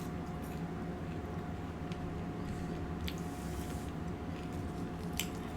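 Steady low room hum with a couple of faint soft clicks.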